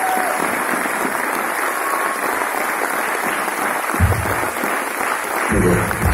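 Audience clapping steadily in a large hall. The bass of loud music comes in briefly about four seconds in and again near the end.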